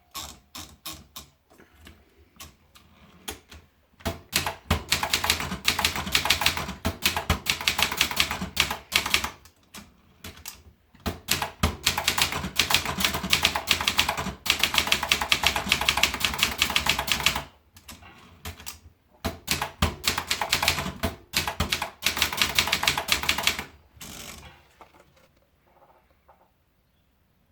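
Vendex 500 typewriter being typed on: rapid, dense keystrokes in three long runs separated by short pauses, with a few scattered strokes at the start and near the end.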